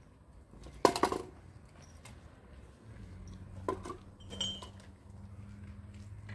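Metal kettle clinking as it is handled: one sharp, ringing clink about a second in, then two lighter clinks around four seconds in.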